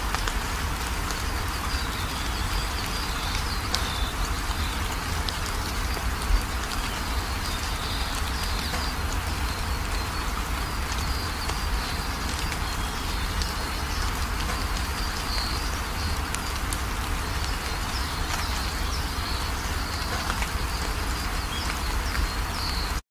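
Steady rain-like background noise with a deep rumble underneath and faint high chirps now and then; one brief sharp tick about six seconds in.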